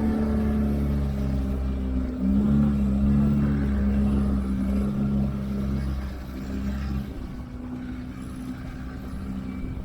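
Fishing boat's engine running steadily with a low hum, a little louder about two seconds in and quieter from about seven seconds in.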